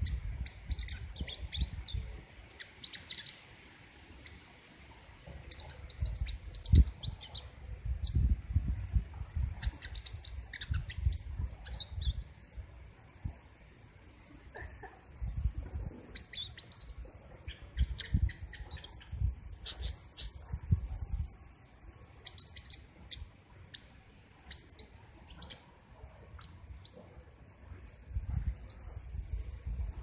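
Caged 'king konin' songbird singing: rapid, high-pitched twittering phrases in runs of one to three seconds, with short single notes between runs.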